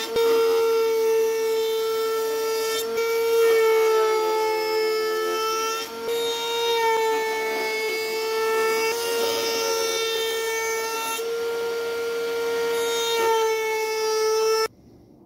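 Table-mounted wood router running with a steady high whine while its bearing-guided edge bit cuts along a hand-fed hardwood board, the pitch sagging slightly now and then under the load of the cut. The sound stops abruptly near the end.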